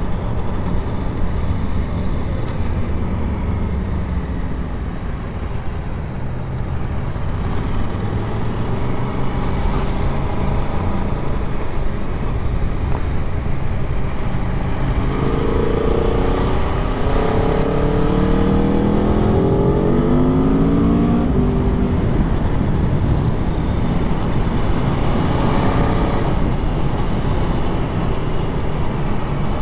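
Aprilia Tuono V4 1100's V4 engine running under way over a steady rush of wind. About halfway through it accelerates, its note climbing in several short rising sweeps.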